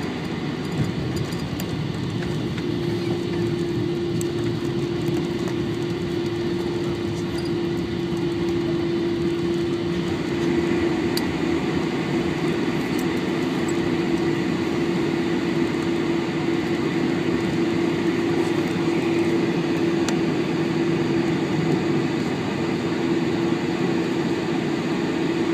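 Cabin noise inside a Boeing 747 rolling out on the runway after landing: a steady rumble of engines, airflow and wheels, with a steady low hum that sets in a few seconds in.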